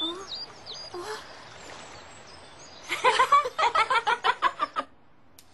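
Two cartoon characters laughing together in a quick run of about five pulses a second, starting about three seconds in and lasting under two seconds. A few faint short chirps come in the first second.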